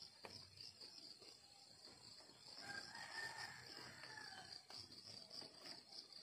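A rooster crowing once, faintly, for about two seconds midway through, over the steady pulsing chirp of crickets.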